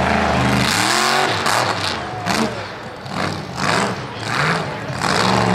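Mega truck's engine revving hard in repeated bursts, its pitch swooping up and down as it powers over a pile of junk cars.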